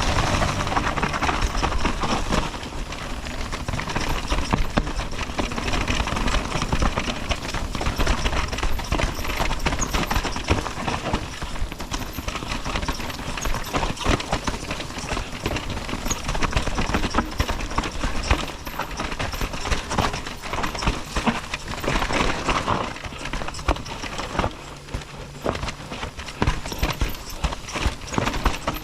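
Orbea Rise e-mountain bike clattering over a rough, rooty trail at speed: a dense, irregular stream of knocks and rattles from the chain, frame and suspension, over a constant rush of wind on the camera microphone.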